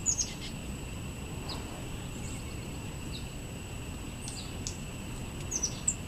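Small songbirds giving short, high chip calls, scattered through, with a quick cluster at the start and another near the end.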